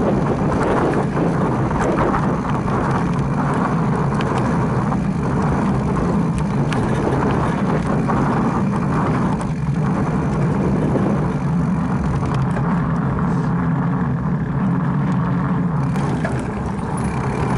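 A mountain bike rolling over a dirt singletrack: a steady rush of wind on the microphone mixed with tyre noise on the trail, and occasional rattling clicks from the bike.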